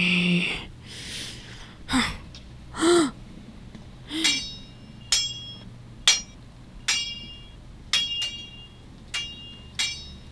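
Sword-fight clashes: sharp metallic clinks, roughly one a second, each ringing briefly, starting about four seconds in. Before them come a few short cartoon vocal squeaks and grunts with sliding pitch.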